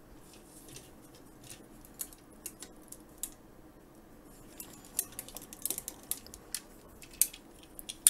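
Hard plastic action-figure parts clicking and tapping as the assembled Transformers Optimus Prime figure with its add-on armour is handled: scattered light clicks, coming thicker about five to seven seconds in.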